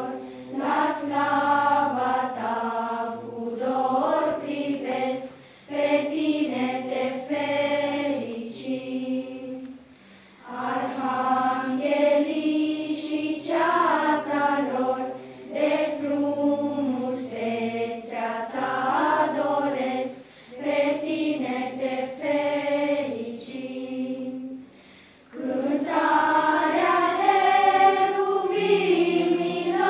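Children's choir singing, phrase by phrase, with short pauses between the phrases.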